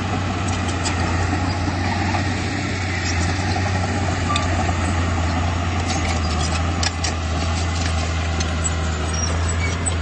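Komatsu D31P bulldozer's diesel engine running steadily with a deep, constant hum, with a few faint clicks and knocks in the middle.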